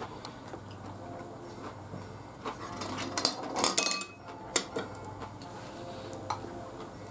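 Chopsticks clicking and scraping against a ceramic rice bowl and plate during a meal, busiest about two and a half to four seconds in, with a short ringing clink and then one sharp click soon after. A low steady hum runs underneath.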